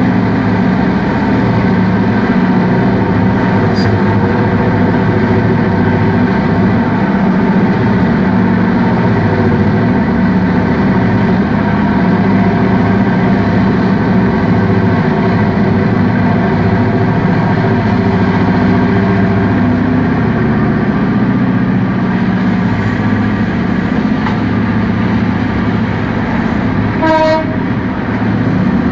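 Loud, steady drone of heavy diesel machinery running, unchanging throughout. A short pitched tone sounds near the end.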